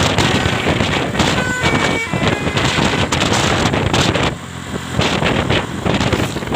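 Heavy wind buffeting on the microphone over road-vehicle noise, with a dip about four and a half seconds in; no clear telolet horn melody stands out.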